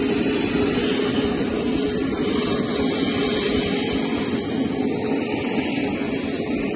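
Mi-17 helicopter's turbine engine running steadily close by, a continuous loud drone with a steady low hum.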